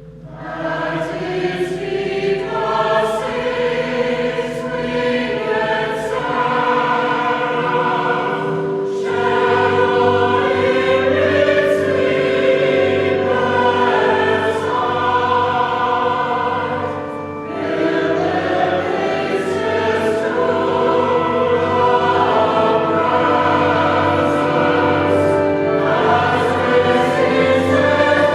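A choir singing a sacred piece in held chords, swelling in at the start with a brief dip near the middle.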